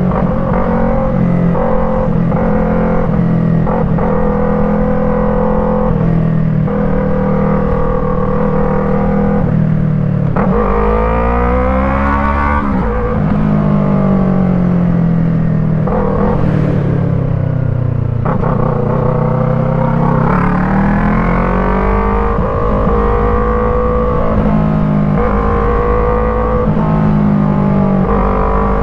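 Yamaha MT-03's 321 cc parallel-twin engine running through an Arashi aftermarket exhaust with its dB killer fitted, the bike under way. The pitch climbs sharply as it accelerates about eleven seconds in and again near twenty seconds, and sinks slowly in between as it slows.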